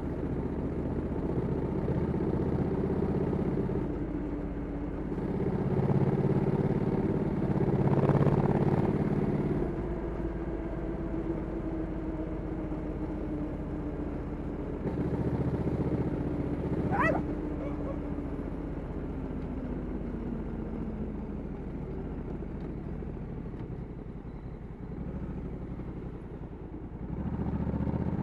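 Stock 2021 Honda Africa Twin 1100 DCT's parallel-twin engine, heard from the rider's seat on the move. It pulls harder and louder about six to nine seconds in, then its pitch falls slowly as the bike eases off, and it picks up again near the end. A brief rising whistle comes about seventeen seconds in.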